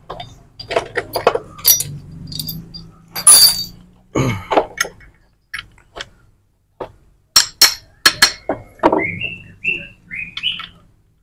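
Steel transmission gears and shafts of a Yamaha Vixion engine clinking and knocking against each other and the aluminium crankcase as the gearbox shafts are worked loose and lifted out by hand. The clinks come irregularly, a few with a short metallic ring.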